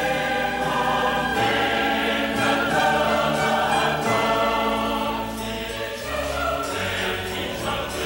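Choir singing a hymn in long held notes over a steady instrumental bass.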